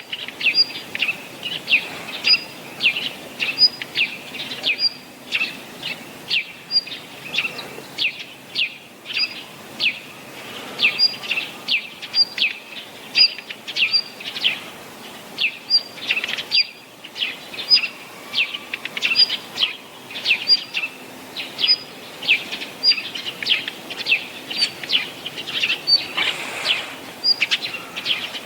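A small songbird calling repeatedly: short, sharp call notes, each a quick downward note with a brief higher tick, at a steady pace of about two a second.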